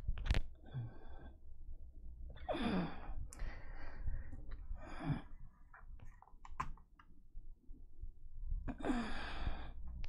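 A man sighing or breathing out heavily close to the microphone three times, each breath falling in pitch. Scattered small clicks and a low rumble come from the camera being handled and moved about.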